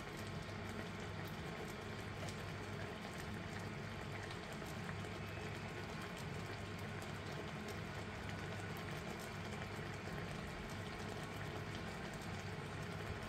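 Thick soy and oyster sauce bubbling and sizzling steadily around potatoes and onions in a ceramic-coated pan on full heat, a continuous fine crackle of popping bubbles as the water cooks out of the sauce.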